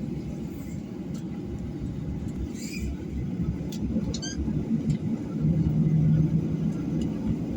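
Steady low rumble of an airliner's cabin, growing louder about two-thirds of the way in, with a few faint clicks.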